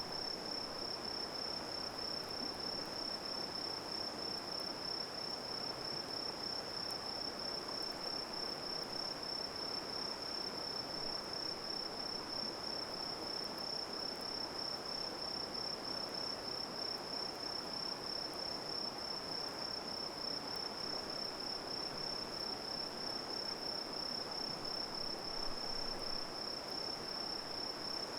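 Insects, crickets by their sound, trilling steadily on one high continuous note over an even rushing hiss.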